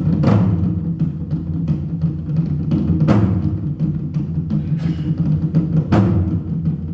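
Korean barrel drums (buk) played by an ensemble in a fast, continuous drum roll with a booming low rumble. Big accented strikes land about every three seconds.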